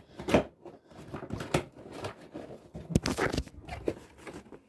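Irregular handling noises: scattered knocks, clicks and rustling, with a sharper knock about 3 seconds in.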